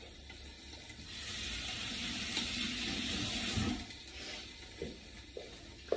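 Kitchen tap running for a few seconds, starting about a second in, as a chili pod is rinsed under it. Under it, a steady low sizzle of Brussels sprouts frying in a pan, with a few faint clicks near the end.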